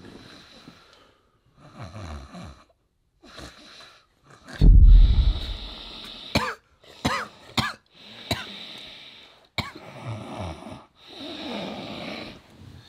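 A man snoring loudly in his sleep: a run of rasping snores and snorts every second or two, the loudest about five seconds in. A few short whistling wheezes follow soon after.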